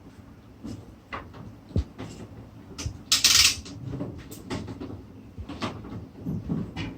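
Metal parts of a hand crane knocking and clicking as it is handled and set up, with one short, louder rasping scrape about three seconds in.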